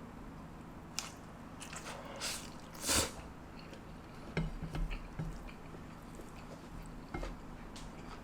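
Someone eating stir-fried glass noodles (japchae), with short wet chewing bursts and light clicks, the loudest about three seconds in.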